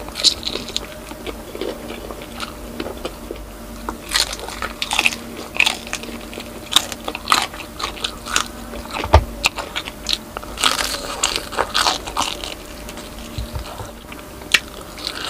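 Close-miked crunching and chewing of crispy pata, deep-fried pork knuckle: the crackling skin gives sharp crunches, most densely in a few clusters around the middle, with quieter chewing between them.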